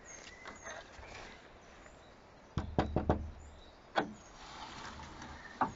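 Several sharp knocks: a quick cluster of about four starting about two and a half seconds in, one more about a second later, and another near the end.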